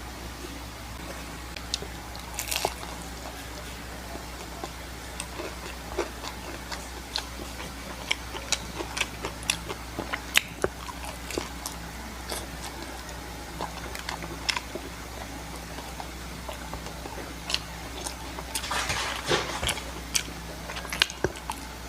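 Close-miked eating: biting and chewing with many small sharp crunches and smacks, and denser crunchy bites about two seconds in and again near the end, over a steady low hum.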